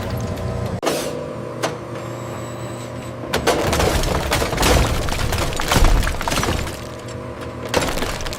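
Hydraulic press crushing an electronic appliance: a series of sharp cracks and crunches as it breaks apart, about eight over several seconds, heaviest near the middle, over a steady hum.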